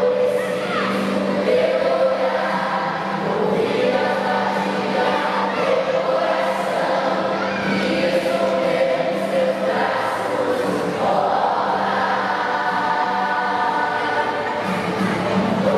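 A choir singing in long held phrases over a steady low note.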